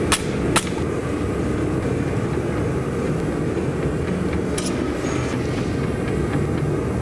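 Wire brush scrubbing scale off red-hot steel on the anvil, two last strokes in the first second, over a steady low rumble. About four and a half seconds in, a short rattle as flux is shaken onto the hot steel to prepare it for a forge weld.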